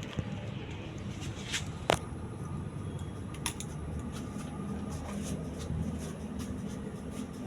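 Celestique/Alaska decorative ceiling fan running with a steady low motor hum, with scattered light clicks and one sharper click about two seconds in.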